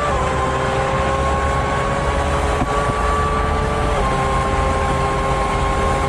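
Formula One car engine at high revs under full acceleration, with a steady high pitch that dips briefly at an upshift about four seconds in and then climbs again, over wind rush.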